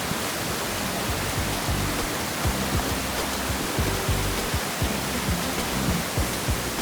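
Steady roar of a large waterfall's rushing water, with frequent short low thumps mixed in.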